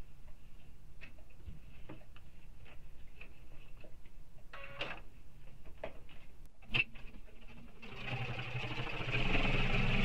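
Light clicks and taps as a domestic electric sewing machine is readied and the thread found. About eight seconds in, the machine starts stitching steadily, topstitching with a long stitch length.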